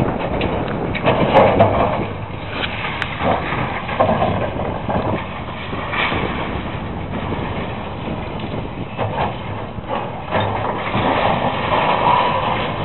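Tracked demolition excavator's diesel engine running as it tears into a building, with scattered knocks and crunches of breaking debris.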